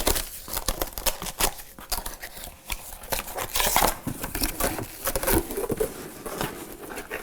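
Packaging being unwrapped and handled, crinkling and rustling with scattered clicks and light knocks, as the cooker's deep pot is taken out of its wrapping.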